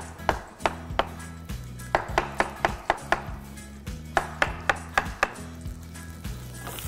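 Chef's knife chopping chanterelle and button mushrooms on a wooden cutting board: irregular sharp knocks of the blade on the board, some in quick runs about two and four seconds in. Background music plays underneath.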